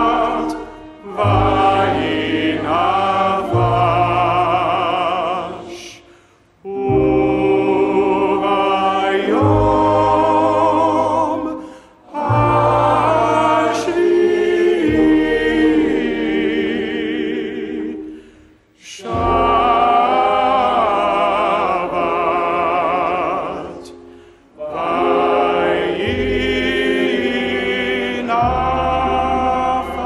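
A Hebrew prayer song sung by a lead cantor with a congregation, accompanied by acoustic guitar, violin and upright bass. It comes in phrases of about six seconds, each followed by a brief pause.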